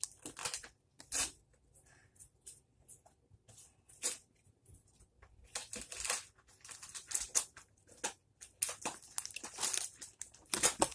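Plastic packaging crinkling and tearing, handled in short irregular rustles with quiet gaps between.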